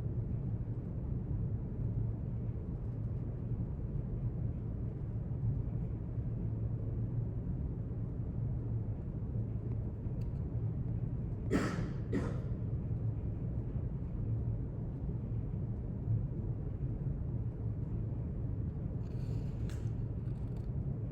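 Library room tone: a steady low rumble, with a brief double rustle about halfway through and faint scratchy sounds near the end.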